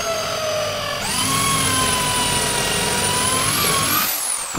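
Handheld electric drill whining as it bores into the plate's wooden stem. Its pitch sags slightly under load at first, jumps higher about a second in and holds steady, then the drill is released near the end and winds down.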